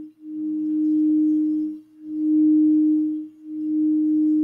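Crystal singing bowl sung by a mallet circling its rim: one steady tone that swells and dips about every second and a half.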